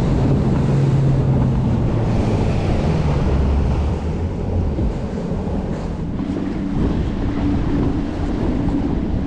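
Bass boat's outboard motor running as the boat moves over choppy water, with wind buffeting the microphone and water washing against the hull. The motor's steady low tone changes about halfway through.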